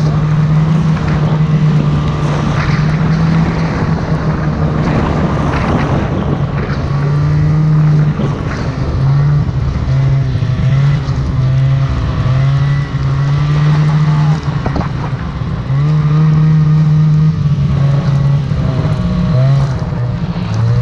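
Snowmobile engine running hard under throttle. From about eight seconds in, its pitch steps up and down again and again as the throttle is worked, with brief drops near the middle.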